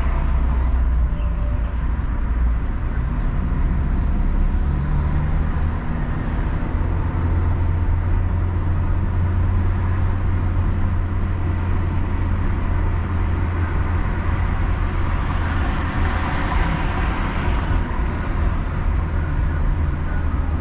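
Car driving along a city street: a steady low rumble of engine and road noise that holds even throughout.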